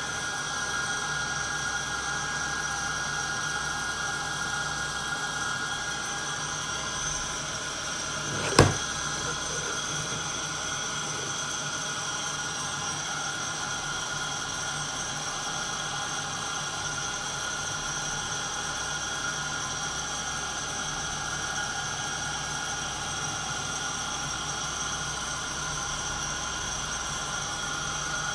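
Santoker Q5 coffee roaster running steadily mid-roast: an even motor-and-fan whir with several constant tones. One sharp knock, the loudest sound, comes about nine seconds in.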